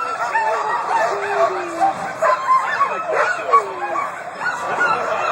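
A team of Alaskan husky sled dogs barking and yipping all at once, many voices overlapping in a steady din, the excited clamour of sled dogs eager to run.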